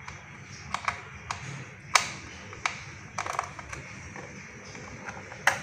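Scattered sharp plastic clicks and taps from fitting a rechargeable battery pack and its wire into the battery compartment on the underside of a toy RC excavator. The loudest clicks come about two seconds in and near the end.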